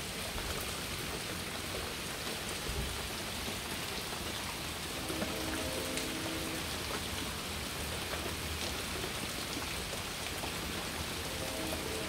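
Steady rain hiss with a distant multi-tone horn chord, taken for a train horn, sounding twice: once about five seconds in for nearly two seconds, with its notes starting and stopping slightly apart, and again near the end.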